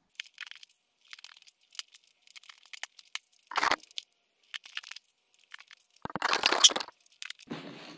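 Vinyl bench-seat upholstery being worked onto the seat-back frame and fastened with hog rings: scattered small clicks and crackles, with two louder crinkling bursts, a short one about three and a half seconds in and a longer one about six seconds in.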